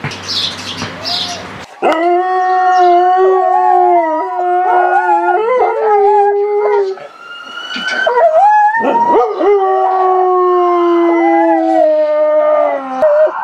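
A dog howling in long held notes, a siren-like 'ambulance' howl: one howl of about five seconds, a brief break with a few wavering notes, then a second long howl that slowly falls in pitch. Birds chirp briefly at the very start.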